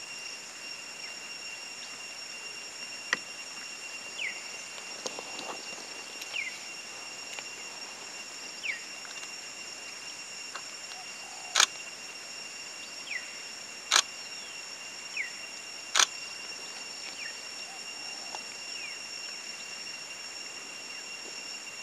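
Steady high-pitched insect drone with a bird's short falling chirps every second or two. Three sharp clicks stand out about twelve, fourteen and sixteen seconds in.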